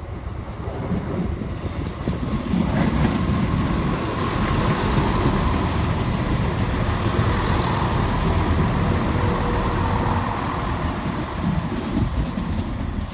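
CrossCountry Class 170 Turbostar diesel multiple unit running past close by: underfloor diesel engines and wheels on the rails, growing louder about two seconds in and easing off near the end.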